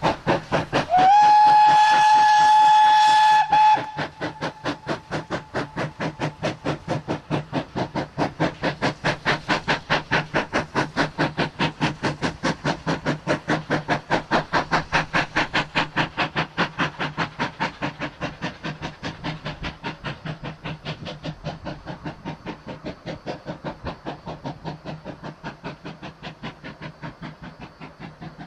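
Ex-Port Talbot Railway 0-6-0 saddle tank steam locomotive No 813 hauling a train. It sounds its whistle once for about three seconds about a second in, with a short upward slide before the note holds steady. Its exhaust beats come evenly at about four a second and fade in the last part as it draws away.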